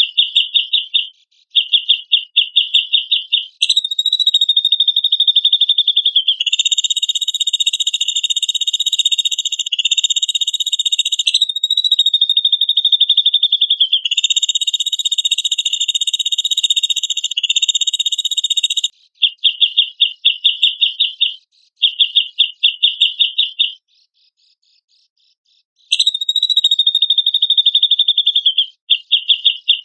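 Cucak jenggot (grey-cheeked bulbul) giving rapid, rattling trills in repeated bursts, several of them running together into long buzzy phrases of a few seconds, with a short pause late on.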